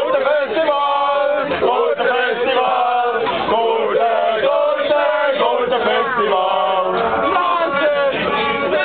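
A group of people, men's voices among them, singing and chanting together, several voices at once without a break.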